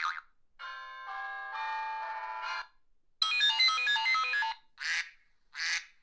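A short electronic ringtone-like jingle: a held chord of chiming tones, then a quick run of bright notes, which is the loudest part. Near the end come two short, high kitten meows.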